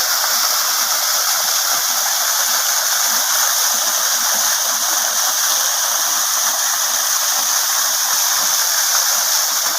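Waterfall: falling water making a steady, even rushing hiss, with hardly any low rumble.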